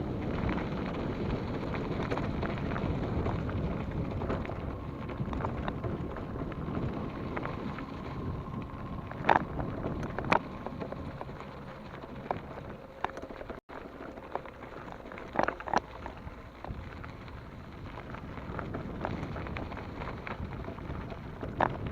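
Mountain bike riding over a dirt forest trail: steady wind on the microphone and tyre rumble, with a few sharp knocks and rattles as the bike goes over bumps.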